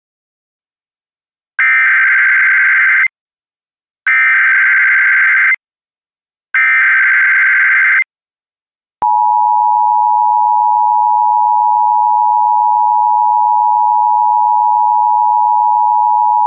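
Emergency Alert System header on NOAA Weather Radio: three identical buzzy digital data bursts, the SAME header coding the child abduction emergency alert, then after a click a long steady attention tone.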